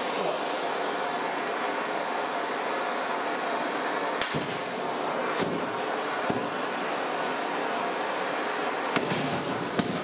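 Gas blowtorch hissing steadily as its flame plays on a row of disposable butane lighters, with about five sharp pops as the lighters burst, the last two close together near the end.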